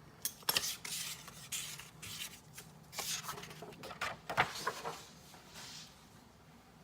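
Scattered light clicks and short rubbing noises, as of small objects being handled.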